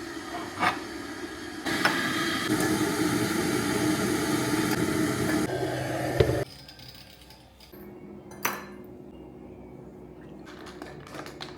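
Coffee being made: a click near the start, then about five seconds of steady rushing noise with a low hum, which stops abruptly, followed by a quieter hum and a single clink of crockery.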